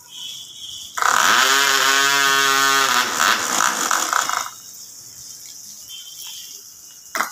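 Small two-stroke model airplane diesel engine on a test bench catching abruptly about a second in after being hand-started and running at a steady high pitch for about three and a half seconds, then stopping.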